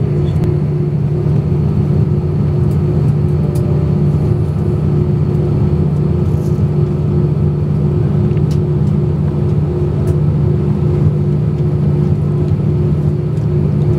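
Cabin noise of an Airbus A320-232 taxiing, heard from a seat over the wing: its IAE V2500 engines running steadily at low thrust, an even hum with a few held low tones and some faint ticks.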